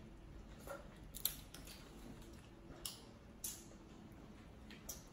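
A few sharp, crisp clicks and cracks over a quiet background, the loudest about a second in: crab and bug shells being broken open while eating a seafood boil.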